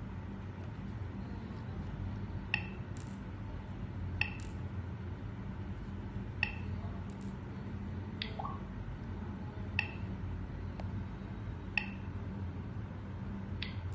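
Short click-beeps from a car GPS navigator's touch screen, one for each menu button tapped, about seven of them a second or two apart, over a steady low hum.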